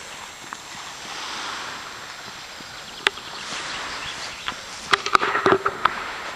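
Wind rushing over the microphone, then quick, uneven footsteps and knocks of running from about three seconds in, thickest near the end.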